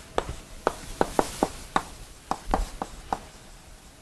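Chalk writing on a blackboard: about a dozen quick, irregular taps of the chalk striking the slate, with light scratching between them.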